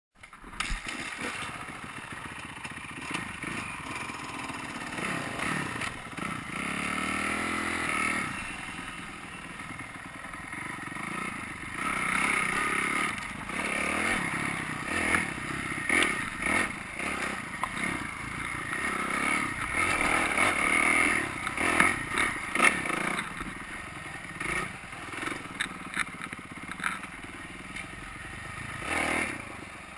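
Kawasaki KX250F single-cylinder four-stroke dirt bike engine revving up and down repeatedly while riding a rough trail, with frequent clattering and knocking as the bike bounces over the ground.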